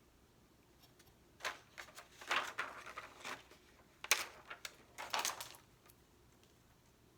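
Stickers and sticker sheets being handled close to the microphone: crinkling, peeling and sticky sounds with sharp clicks, in a run of about four seconds between quiet stretches.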